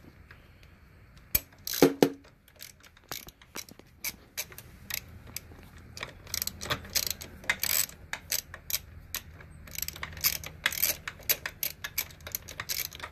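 Hand ratchet wrench clicking in quick runs as a 10 mm bolt holding the brake line to the motorcycle frame is turned out, with one louder knock about two seconds in.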